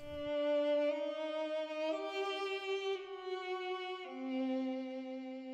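Background music: a slow melody of long held notes that step to a new pitch about once a second.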